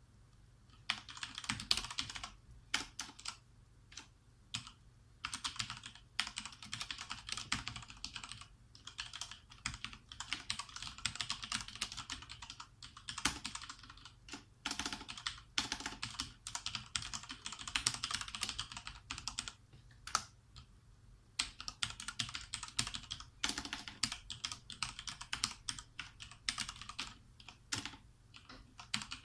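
Fast typing on a Thermaltake TT Premium Level 20 RGB Titanium mechanical keyboard with Cherry MX Speed Silver linear switches: rapid runs of keystrokes clacking, broken by short pauses and single key presses.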